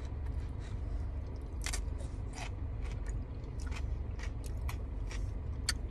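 Close-up chewing of a mouthful of crisp salad greens, with a run of small wet crunches and clicks, a few louder ones standing out, over a steady low hum.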